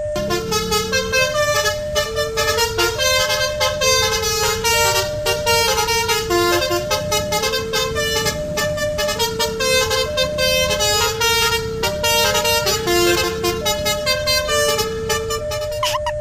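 A melodic multi-tone vehicle horn playing a tune: a line of held notes alternating between two pitches, with many higher notes stacked above it and fast regular pulses throughout.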